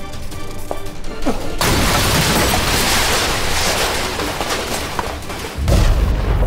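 Background music, then a dense rushing, crash-like noise for about four seconds, followed near the end by a heavy, deep boom that opens the outro sting.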